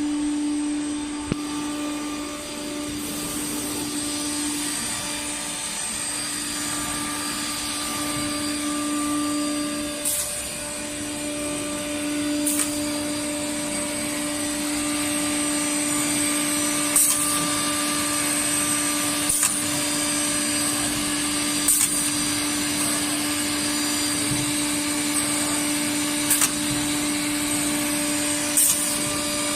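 CNC nesting router running steadily: a constant tone from the spindle over the hiss of the machine's suction and dust extraction. In the second half, short sharp bursts come about every two and a half seconds.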